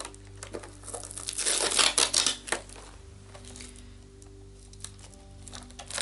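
Plastic film sealing a cardboard makeup-brush box being torn and crinkled open: a loud rustling, tearing burst about a second in that lasts a second and a half, then a few light clicks as the box is handled.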